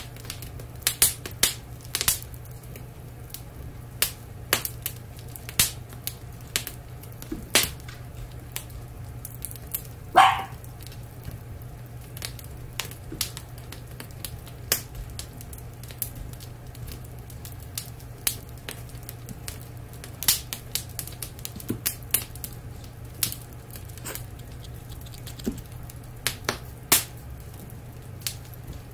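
Wood fire crackling with irregular sharp pops over a steady low hum. About ten seconds in, a dachshund gives one short, high yelp that falls in pitch, the loudest sound here.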